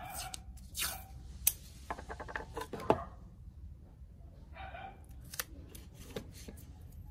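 A strip of masking tape pulled off its roll and torn, a quick crackle of ticks with a couple of sharp snaps, then small handling clicks as the strip is pressed onto a plastic tool housing.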